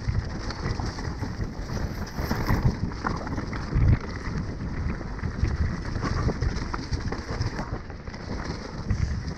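Enduro mountain bike riding fast down a rough, leaf-covered dirt trail: a steady rush of wind on the microphone and tyres over dirt and leaves, broken by frequent thuds from bumps, the hardest about four seconds in.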